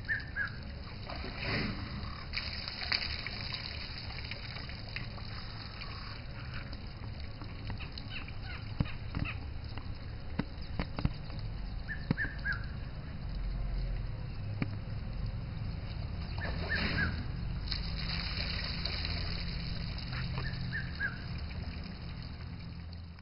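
Red-chested cuckoo calling its three-note falling 'piet-my-vrou' phrase four times, several seconds apart, over a steady low rumble with scattered clicks.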